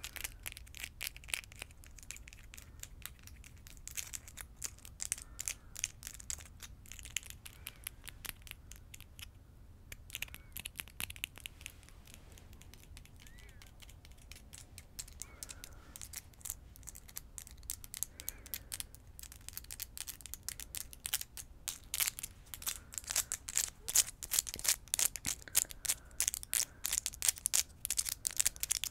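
Long acrylic fingernails tapping and clicking rapidly against each other close to the microphone, a dense run of small sharp clicks that thins out briefly near the middle and grows louder and busier in the last third.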